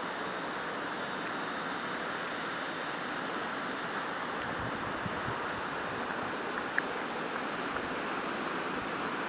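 Steady rushing hiss of open-air ambience, with a faint tick about seven seconds in.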